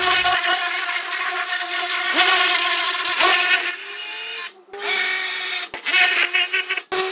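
Pressure washer spraying a freshly degreased engine block: a steady hiss of spray with a whine from the machine, cutting out briefly a few times.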